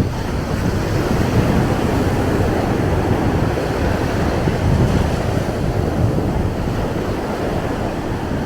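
Ocean surf washing up on the beach, a steady rushing noise, with wind buffeting the microphone.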